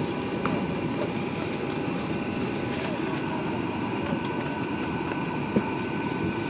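Steady cabin noise of a parked airliner: the ventilation running with several constant whining tones, over a low murmur of passenger chatter and a few light clicks.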